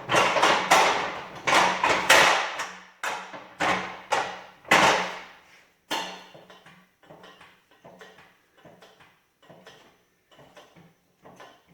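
Hand pallet jack being worked under a heavy engine stand: a series of metallic clunks and scrapes, loud at first and much fainter after about six seconds.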